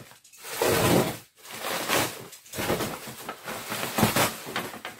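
Plastic bubble wrap rustling and crinkling as it is handled and pulled open, in several loud surges with short breaks between them.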